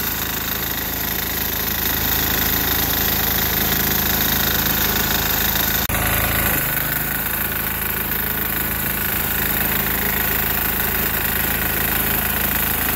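A 6 hp single-cylinder diesel engine in a Sears Suburban garden tractor runs steadily. There is a brief click and a shift in its sound about halfway through.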